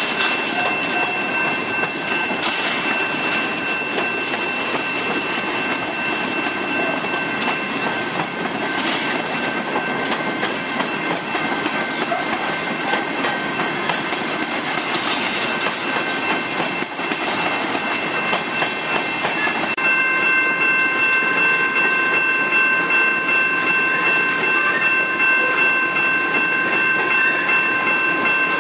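Loaded coal cars of a freight train rolling past, their wheels clattering over the rails with a steady high-pitched squeal from the curving track. About twenty seconds in the squeal gets a little louder and takes on more tones.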